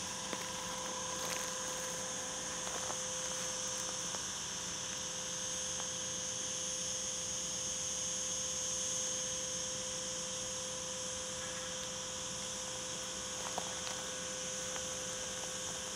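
Steady, unbroken high-pitched insect chorus from the dry grass and scrub, with a faint steady hum underneath.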